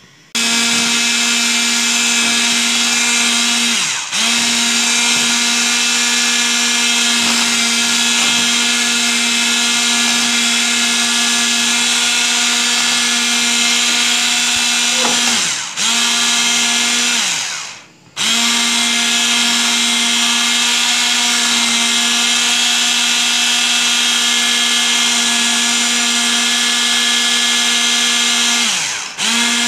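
Electric hand mixer running at high speed as its twin beaters whip a thick whipped-coffee paste, a steady motor whine. Its pitch sags several times and it cuts out for a moment about halfway through before running again: the paste is so thick that the mixer stalls.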